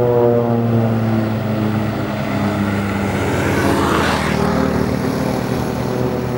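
Boeing 787 Dreamliner jet engines at takeoff power, a steady tonal drone as the airliner passes, with a rushing hiss that swells and peaks about four seconds in.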